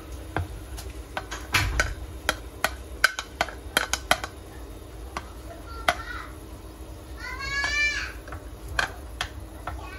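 A plastic spoon tapping and scraping cooked rice off a ceramic plate into a pan of simmering water, then stirring it: a string of sharp clicks and knocks. About seven and a half seconds in, a short high-pitched cry rises over it.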